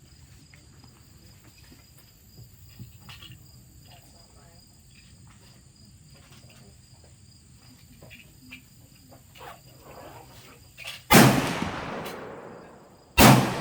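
Two loud gunshots about two seconds apart, near the end, each followed by a long fading echo. Crickets chirp faintly and steadily before them.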